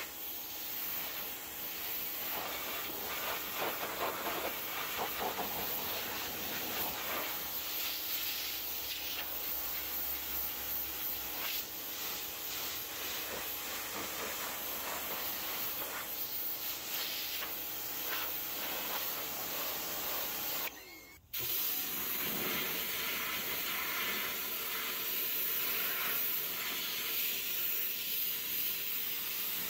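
Pressure washer jet spraying water onto a car's front bumper, a steady hiss that breaks off for about half a second about two-thirds of the way through.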